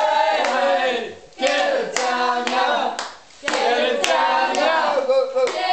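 A group of people chanting together in three loud bursts with short breaks between them, with hand clapping.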